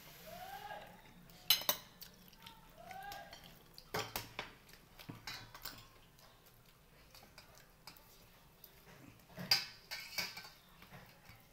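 Dishes and a stainless steel pot clinking and scraping as food is served and eaten at a table: irregular knocks and clicks, the sharpest about a second and a half in, again near four seconds and near nine and a half seconds.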